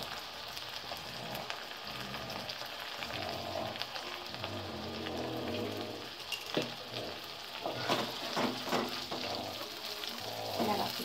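Oil sizzling steadily in a kadai as chopped onion, garlic, green chillies and curry leaves fry, with red chilli sauce just poured in. Over the second half a wooden spatula scrapes and stirs through the pan in quick strokes.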